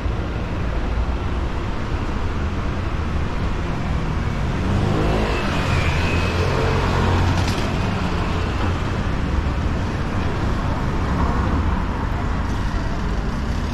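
Street traffic: steady road noise from cars going by, with a motorcycle passing close in the bus lane about five seconds in, its engine pitch sweeping and the noise swelling for a few seconds as it goes by.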